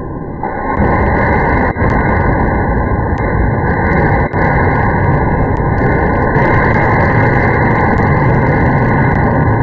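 Electric fan running fast, a loud steady rush of air, with two brief dips in the sound.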